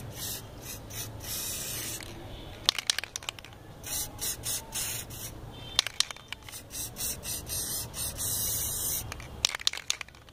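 Aerosol spray-paint can hissing in repeated short bursts, the longest about a second, as touch-up paint is sprayed over a filled scratch on a car bumper. A few sharp clicks fall between the bursts.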